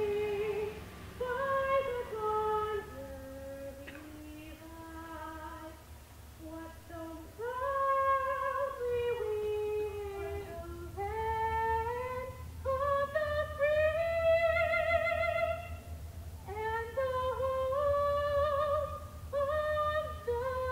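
A young woman singing solo into a handheld microphone: a slow melody with long held notes and vibrato.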